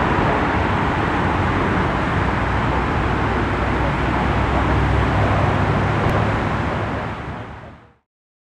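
Jet engine noise of a landing FedEx Boeing 767-300 freighter: a steady rushing noise with a deep rumble underneath, fading out near the end.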